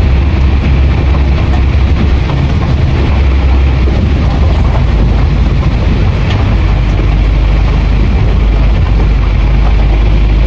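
Hino 500 truck's diesel engine running steadily under way, heard from inside the cab as a loud, constant low drone, with an even rush of heavy rain and wet-road noise over it.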